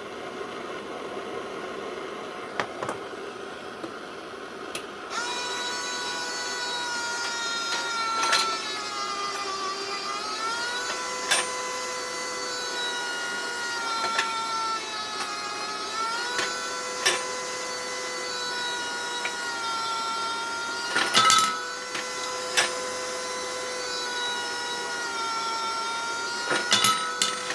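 Anneal-eez automatic brass case annealer running .45-70 cases under its propane torch: a faint hiss, then from about five seconds in a steady whine that wavers slowly in pitch, with a sharp click every two to three seconds as the indexing wheel advances the cases.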